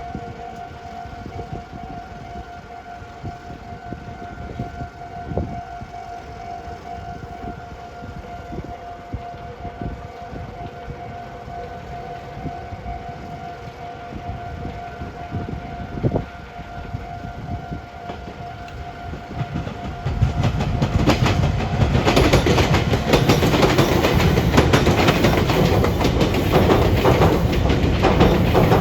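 An electric train running through railway pointwork, its wheels clacking over the rail joints of the switches and crossings. This sets in loudly about two-thirds in; before that there is a steady high tone with a few single knocks.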